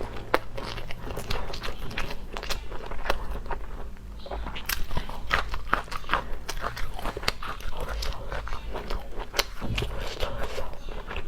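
A person biting and chewing crunchy food close to the microphone: many sharp crunches and clicks at an uneven pace.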